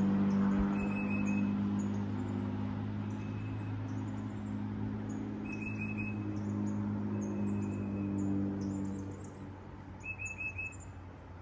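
Birds chirping, with a short rapid trill repeated three times and scattered high chirps. Under them is a steady low engine hum that fades away about nine seconds in.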